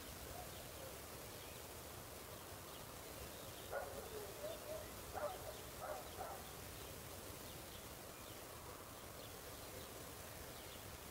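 Quiet rural ambience at dusk: a steady faint hiss with faint high chirps, and a distant dog barking about five times, roughly four to six and a half seconds in.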